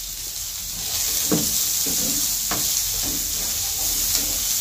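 Diced carrots, courgette and capsicum sizzling in a non-stick frying pan while a plastic slotted spatula stirs and tosses them, with a few scraping strokes against the pan.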